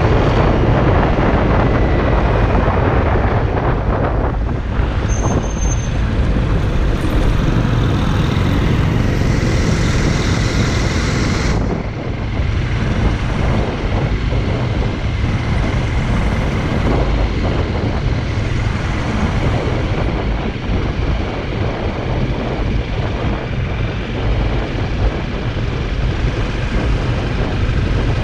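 Wind rushing over the microphone while riding, with a Honda CRF motorcycle's engine running underneath as one steady loud rumble.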